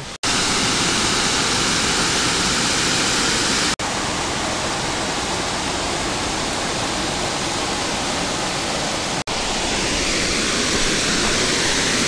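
Steady rush of a small waterfall cascading over rock ledges into a creek pool, broken by a couple of brief gaps.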